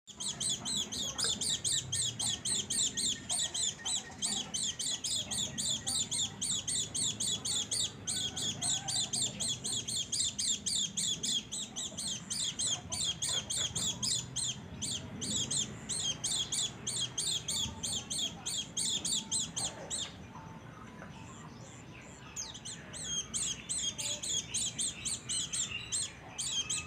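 Pleci (white-eye) giving a long run of rapid, high-pitched repeated chirps. It stops for a few seconds about two-thirds of the way through, then starts again. This is an unusual call that the keeper cannot place among the known pleci call types.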